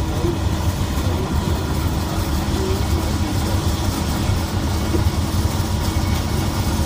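Steady low rumble of road and engine noise inside a moving car's cabin, heard through closed windows.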